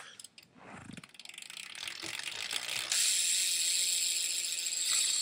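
Freewheel hub of a 2013 Fit Dugan 2 BMX ticking rapidly as the wheel coasts, its pawls clicking over the ratchet. It is a pretty quiet hub; the clicking builds from about a second in and gets louder about three seconds in.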